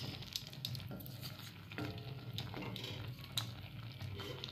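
A wooden spatula stirring and scraping a thick curry in an aluminium kadai: faint, scattered scrapes and clicks over a low steady hum.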